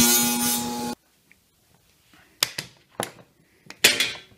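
Table saw running and cutting a shallow slot across a wooden block, stopping abruptly about a second in. Then several sharp clacks of clamps and the wooden block being handled.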